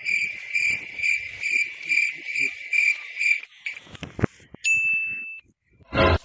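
Cricket chirping in a steady pulsing trill, about two chirps a second, stopping after about three and a half seconds. About a second later comes one brief high ding-like tone.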